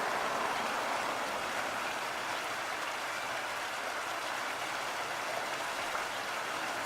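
Small stream waterfall, water splashing and rushing in a steady, even hiss.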